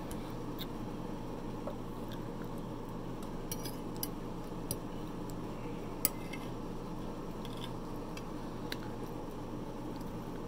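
Metal fork clicking and scraping against a plate as food is scooped up: a scattering of light clicks, the sharpest about six seconds in, over a steady low background hum.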